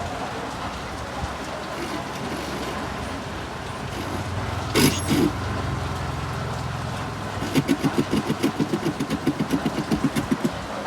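Sony DAV-DZ350 home theatre sending an odd sound through its speaker: a sharp crackle about halfway through, a low hum, then a rapid stuttering buzz of about six pulses a second for some three seconds. This is the fault sound before the unit trips into protect mode, which the technician puts down to arcing from a faulty IC on the board.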